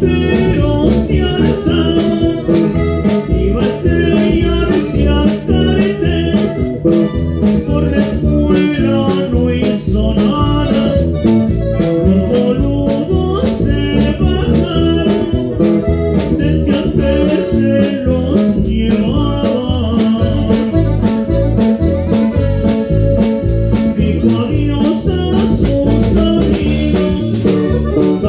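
Live norteño band playing an instrumental passage: an accordion melody over bajo sexto, guitar and a steady drum beat.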